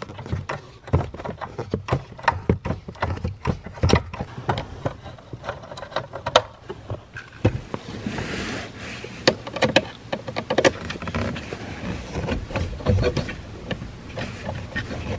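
Clicks, taps and rattles of plastic dashboard trim and wiring being handled under the dash of a VW Jetta MK6 while a vent piece is worked loose, with a stretch of rustling about halfway through.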